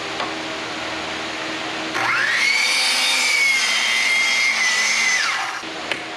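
Electric miter saw motor whining up to speed about two seconds in and held for about three seconds as the blade cuts through a wooden board, then winding down. A steady fan hum runs underneath.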